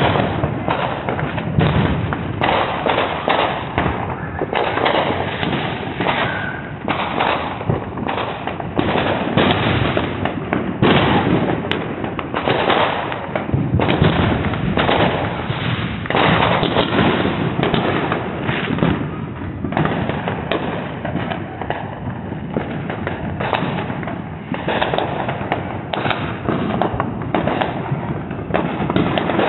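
Fireworks going off in a continuous barrage: many overlapping bangs and pops, one after another, with no pause.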